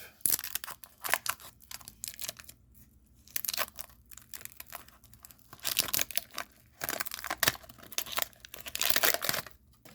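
A trading card pack's wrapper being torn open and crinkled by hand, in several scratchy, crackling spells. The longest and loudest spells come in the second half.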